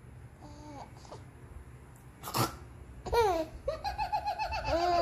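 A baby laughing: one short sharp squeal about halfway through, then bursts of high-pitched laughter from about three seconds in.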